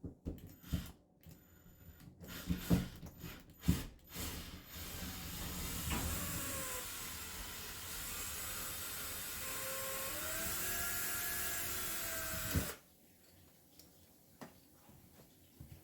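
A few sharp handling clicks and knocks, then a cordless drill-driver runs for about eight seconds, its motor pitch wandering as it drives out the doorknob's mounting screws, before it stops abruptly.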